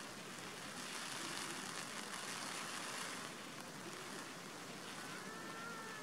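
Steady hiss of outdoor background noise, with a faint, short whistled note about five seconds in.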